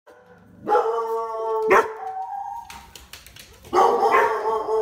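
A dog's drawn-out cries, two of them, each well over a second long, with a sharp click about halfway through the first.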